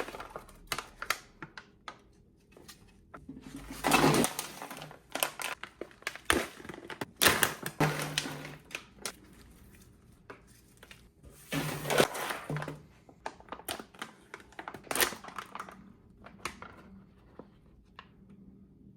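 Toy packaging being opened and handled: crinkling and crackling of plastic with many sharp clicks and taps, in several louder bursts, quieter near the end.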